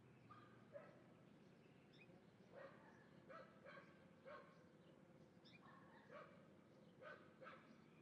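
Faint short animal calls repeating in loose clusters of two or three, a few times a second, with a few thin rising chirps over them.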